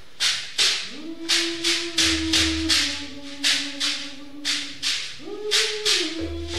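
Performance music: rattles shaken in a steady beat, about two to three shakes a second, under a melody of long held notes that step between a few pitches, with a low hum joining in at times.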